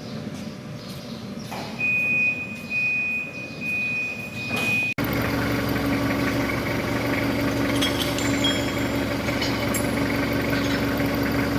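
Scattered sharp metallic clicks and a high steady whine lasting about three seconds. After an abrupt cut about halfway through, a heavy machine's engine runs steadily with a deep hum.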